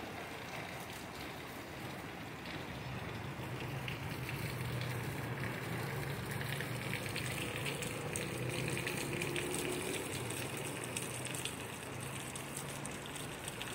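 Heavy rain falling steadily, a dense even hiss of water that grows a little louder in the middle.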